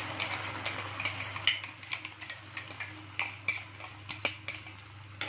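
A steel knife scraping and tapping thick masala paste out of a stainless-steel bowl: a quick irregular run of metal-on-metal scrapes and clicks.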